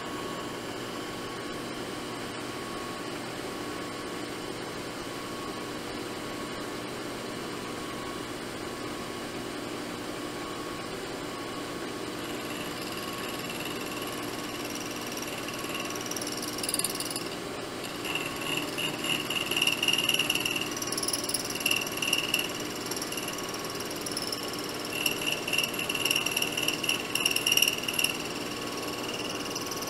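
Vertical milling machine spindle running with a steady hum. About twelve seconds in, an 11/32-inch four-flute end mill starts cutting a slot in a metal part, adding a high whine that comes and goes in louder, uneven spurts from about sixteen seconds on.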